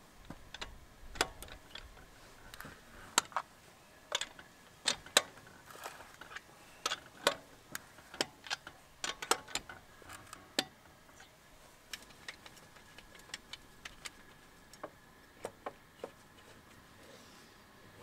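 A wheel brace clicking and knocking against the lug nuts as it is fitted and turned to loosen them through a plastic wheel cover: irregular sharp metallic clicks, loudest in the first half, thinning out near the end.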